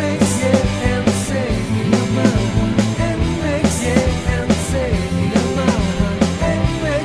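Rock band music with a steady drum beat and a melodic lead line.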